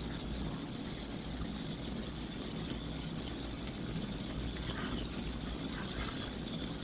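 Marinated galbi and kimchi sizzling on an electric grill: a steady hiss, with a few faint clicks.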